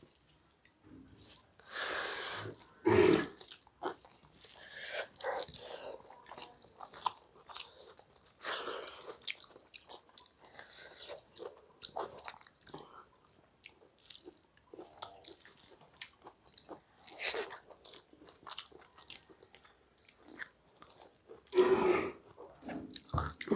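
Close-miked chewing and biting as two people eat rice and vegetable curry by hand from steel plates, with irregular soft clicks and mouth sounds. A louder stretch comes near the end.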